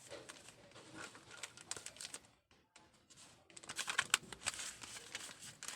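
Boxes of cough-relief patches and their wrapped sachets being handled: irregular light taps, clicks and crinkles of cardboard and plastic packaging, briefly pausing just past halfway and then growing busier.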